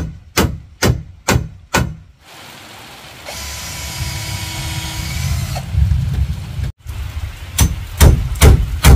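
Hand-tool strikes on wood, evenly spaced at about two a second, stopping about two seconds in and starting again near the end; in between, a few seconds of steady noise.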